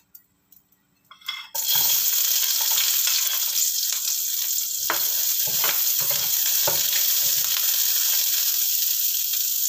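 Sliced shallots, garlic, onion and ginger hitting hot oil in a wok: loud, steady sizzling starts suddenly about a second and a half in. A metal spatula knocks and scrapes against the pan a few times as the aromatics are stirred.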